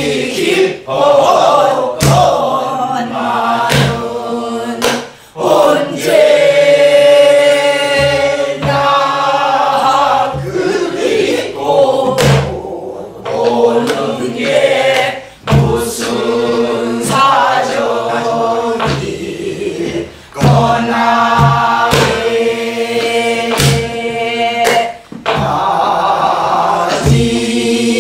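A group of men and women singing a southern Korean folk song (namdo minyo) together in long phrases with short breaks between them. A barrel drum (buk) strikes time underneath.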